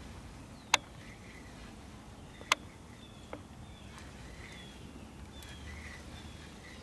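Faint birds calling in short falling chirps over a low outdoor background, with two sharp clicks about a second and two and a half seconds in, and a few fainter ticks later.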